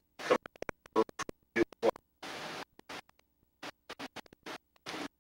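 Choppy, broken-up recording audio: many short fragments of sound, each cut off abruptly by dropouts, with a brief burst of hiss about two seconds in.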